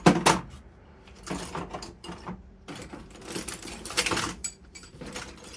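Old screwdrivers and other metal hand tools clinking and clattering as they are handled and put down on a bench, with a loud knock at the start followed by irregular bunches of clicks and rattles.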